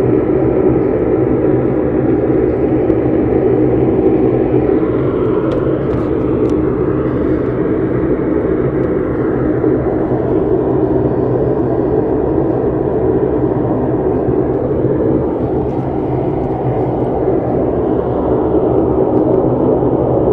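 Loud, steady droning rumble with many held tones, from a distant jet aircraft engine. It does not sound like an ordinary jet.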